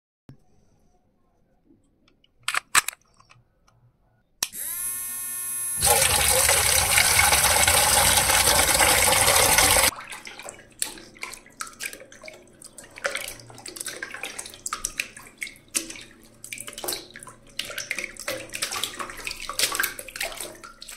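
A couple of sharp clicks, then a miniature electric water pump's motor whines up in pitch about four seconds in. A loud, even rush of water follows for about four seconds and cuts off abruptly. After that comes irregular splashing and dripping of water poured from a small cup into a toy water tank.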